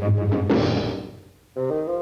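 Orchestral cartoon score. Low repeated notes are followed by a crash about half a second in that fades away. After a brief gap, a sustained chord comes in near the end.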